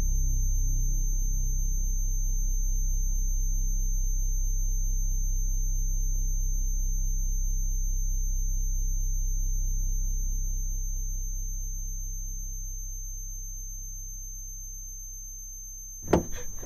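A low, steady electronic drone with a faint, thin high whine above it. It holds steady for about ten seconds, then slowly fades, and cuts off abruptly near the end.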